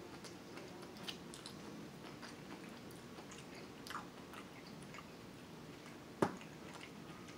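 A man chewing a mouthful of curry chicken close to the microphone, with small wet mouth clicks. A sharp tap of the plastic fork on the takeout plate about six seconds in.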